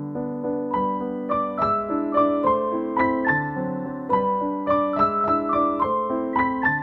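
Background keyboard music: a piano melody of quickly following notes over lower held chords.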